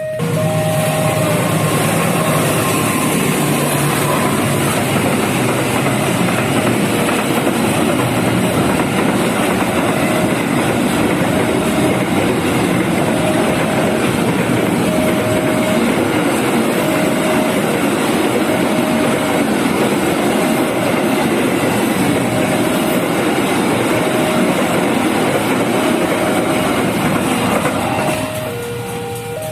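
A train passing over a level crossing: a loud, steady rumble of wheels on the rails that drops away about two seconds before the end as the train clears. Under it, the crossing's warning siren keeps sounding, alternating a higher and a lower note roughly every second.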